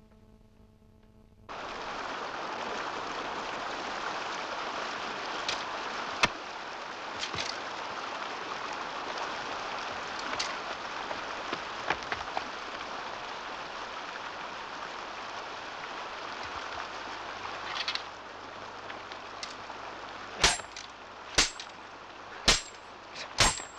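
A mountain stream rushing over rocks, a steady roar of water that starts suddenly about a second and a half in, after a faint room hum. Near the end, four sharp metallic clanks ring out over it.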